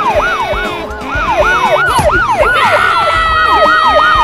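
Police siren on a fast up-and-down cycle, about three sweeps a second. About two and a half seconds in, a second steady siren tone joins and slowly slides lower.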